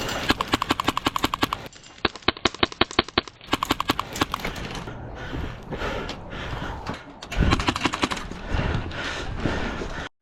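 Airsoft gunfire: rapid full-auto bursts of sharp, evenly spaced clicking shots, in several bursts over the first four seconds or so, followed by a noisier stretch with a dull low thump about seven and a half seconds in.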